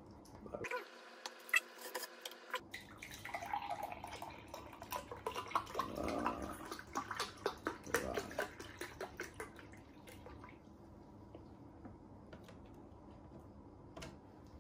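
Clicks and crackles as the milk carton's cap is opened, then date milk pouring from the carton into a ceramic mug for several seconds.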